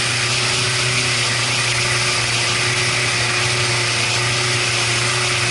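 Boat engine running at a steady speed, a constant drone with a hiss over it.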